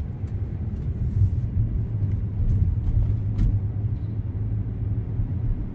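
Steady low road and drivetrain rumble inside the cabin of an Audi Q7 on the move, with a few faint light ticks. The sunroof has been opened, which makes its ticking rattle go away.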